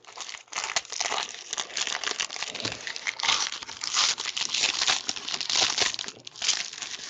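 Plastic wrapping crinkling and crackling as trading cards are unwrapped and handled, irregular and continuous, easing off near the end.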